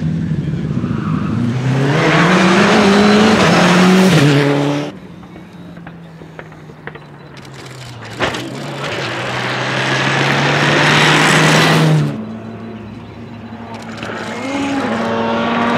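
Rally cars driven flat out on a stage, one after another: an engine note climbing steeply as a car accelerates, then cars coming up with the engine note steady and growing louder, with a short thump about 8 seconds in as a car lands a jump. The sound breaks off abruptly twice, about 5 and 12 seconds in, and each time a new car is heard.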